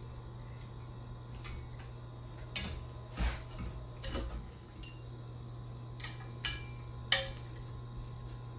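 Metal parts and tools being handled: scattered light clinks and knocks, about half a dozen, with the sharpest click about seven seconds in, over a steady low hum.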